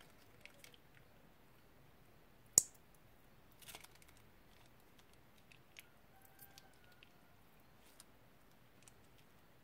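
Soft squishing of slime and crinkling clicks of a plastic piping bag as slime is squeezed out of it, with one sharp click about two and a half seconds in.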